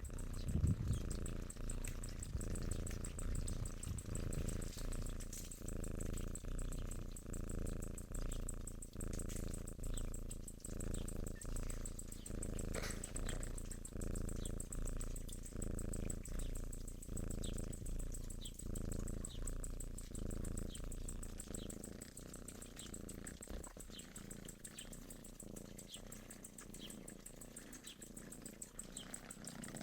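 A cat purring, the low buzz swelling and fading with each breath about every second and a half. It grows fainter over the last several seconds.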